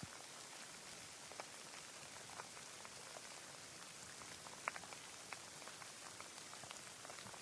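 Rain falling: a soft, even hiss with scattered single drops ticking, one louder drop a little past the middle.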